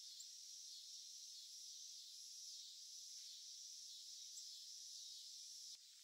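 Faint, steady, high-pitched outdoor insect chorus, a continuous shrill hiss with no separate calls. Near the end comes a faint click, and the level drops slightly.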